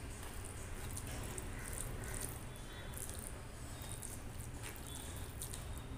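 Eating by hand: wet squishing of fingers mixing rice and kadhi on a steel plate, with scattered small sticky clicks, over a steady low hum.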